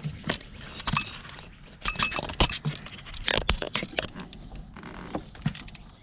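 Hand tools clinking and scraping against metal, with many sharp irregular clicks and knocks, as a spark plug socket and extension are worked down into the engine.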